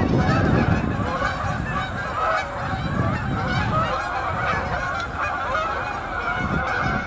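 A large flock of geese honking, many calls overlapping at once, with a low rumble underneath that fades out about four seconds in.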